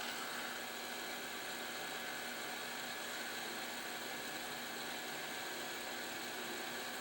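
Heat gun blowing hot air at medium airflow, a steady hiss with a faint constant fan hum, while it melts the solder under an LED on a TV backlight strip.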